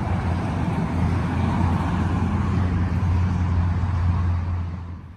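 Motor vehicle engine running nearby: a steady low hum over road noise, fading away near the end.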